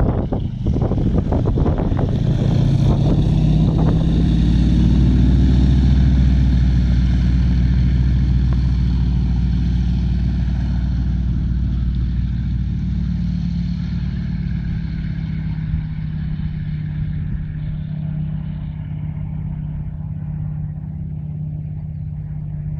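Zlín Z-37A Čmelák's nine-cylinder radial engine and propeller at takeoff power. It is loudest about five seconds in, then fades steadily as the plane rolls away down the runway and climbs out.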